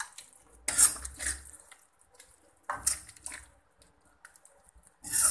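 A spoon scraping thick mango chutney out of an iron kadhai and knocking it into a bowl. The scrapes and clatters come in three short bouts about two seconds apart.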